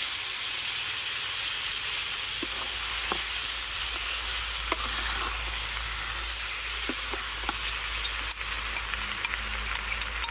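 Chicken feet and vegetables sizzling in a hot wok while a metal spatula stirs them. Sharp clicks and scrapes of the spatula against the pan, more frequent near the end.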